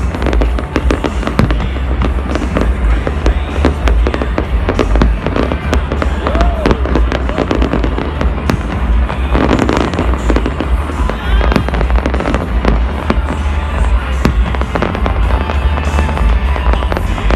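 Fireworks display: rapid bangs and crackling from many shells bursting in quick succession, over a constant low rumble.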